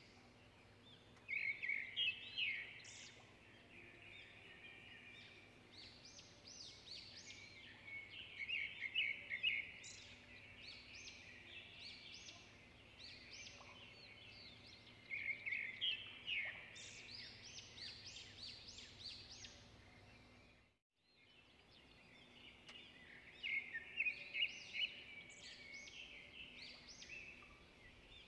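Small birds chirping and chattering in quick bursts of rapid calls, with a faint steady hum underneath. The sound cuts out completely for a moment about three-quarters of the way through.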